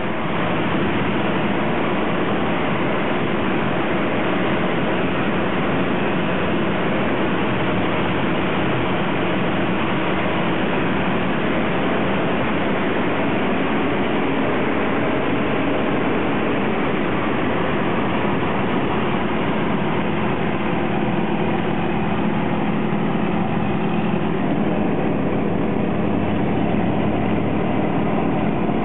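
A light aircraft's piston engine and propeller running steadily in flight, heard from inside the cockpit. The upper part of the sound eases slightly about two-thirds of the way through.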